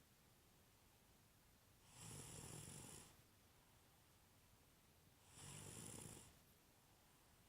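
Faint snoring: two slow snores, each about a second long with a low rasp and a breathy hiss, about three and a half seconds apart.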